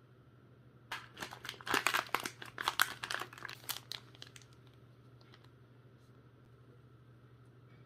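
Rapid crinkling and clicking of plastic being handled, as when spare drone propellers and their packaging are worked by hand, most intense between about one and four seconds in before dying away. A faint steady hum runs underneath.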